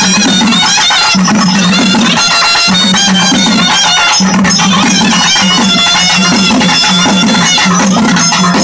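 Naiyandi melam, a Tamil folk band, playing: a reedy double-reed pipe carries a fast, heavily ornamented melody over barrel drums beaten in a driving rhythm, loud and without a break.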